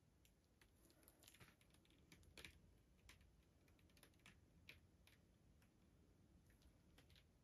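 Near silence, with faint, scattered light clicks and taps at irregular intervals.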